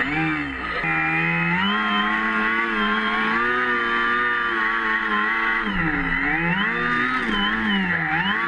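Two brushless electric motors driving 12-inch propellers on a foam-and-fiberglass RC airboat, running at speed. Their pitch dips and climbs back as the throttle changes, once near the start and again about six seconds in.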